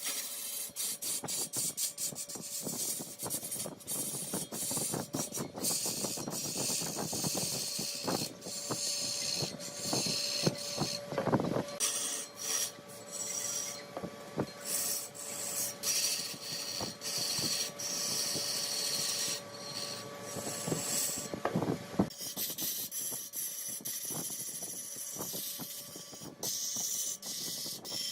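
Wood lathe turning a large piece of wood: a tool scrapes and cuts the spinning workpiece with a rasping sound and rapid ticking, over a steady hum from the machine.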